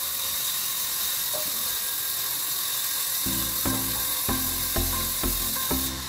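Steady hiss of a sawmill band saw running. About three seconds in, background music with a regular beat comes in over it.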